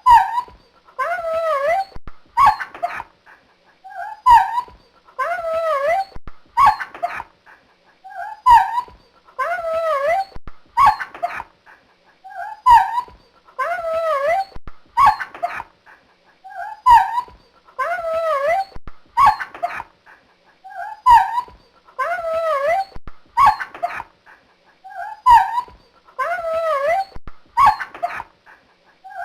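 A dog yelping and whimpering in pain: short sharp yelps followed by drawn-out whines that bend up and down in pitch, the same cycle repeating about every two seconds.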